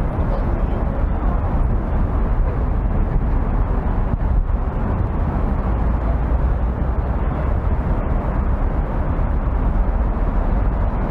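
Steady city street noise with a deep, continuous rumble, typical of motor traffic.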